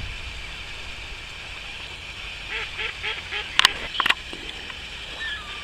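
A duck quacking about six times in quick succession, followed by two sharp clicks, over the steady rush of river water.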